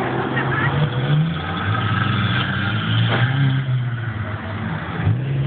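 Several sports car engines running as the cars drive past one after another, engine pitch rising and falling with the throttle.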